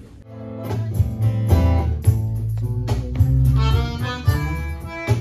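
A band starts playing the instrumental intro of a sertanejo song during a sound check, beginning abruptly a moment in, with a steady bass line and regular drum hits.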